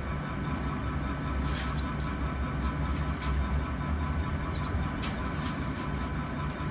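Two brief, high, squeaky chirps from a small bird, about one and a half seconds and four and a half seconds in, over a steady low rumble with a faint hum.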